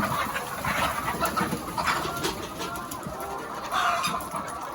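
A flock of laying hens clucking, with many short calls overlapping.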